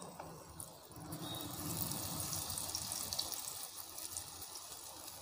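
Semolina malpua batter sizzling and crackling as it deep-fries in hot oil in a frying pan, a little louder from about a second in.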